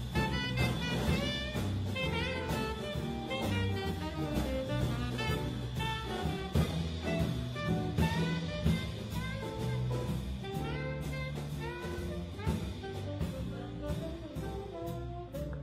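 Small jazz combo playing a swing tune live: tenor saxophone over guitar, electric bass and drum kit.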